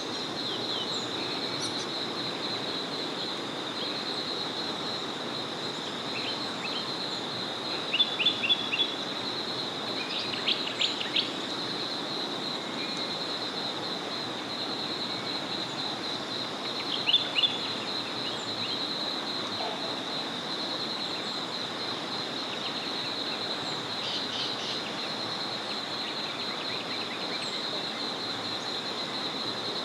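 Small forest river flowing steadily, under a continuous high-pitched trill of rapid pulses. Birds call over it in short bursts of quick repeated notes, loudest three times in the first two-thirds and once more faintly later on.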